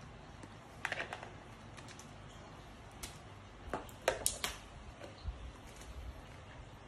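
Scattered sharp clicks and knocks of hard parts being handled: a pair about a second in, a few more between three and four and a half seconds in, and a dull thud a little after five seconds, over a low steady background.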